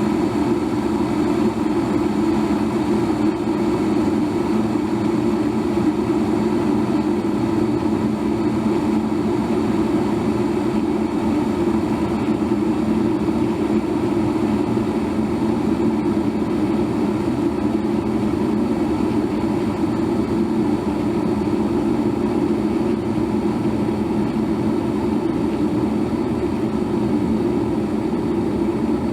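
Electric kettle boiling: a steady, low-pitched churning of water at the boil, without breaks or changes.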